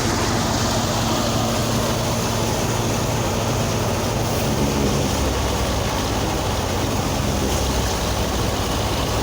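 Farm harvesting machinery running steadily under a heavy engine, its low hum shifting slightly about halfway through.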